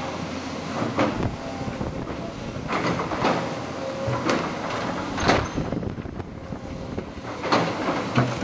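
Tracked hydraulic excavator running steadily, with several sharp metallic clanks and squeaks from the machine as it works over compacted rubbish.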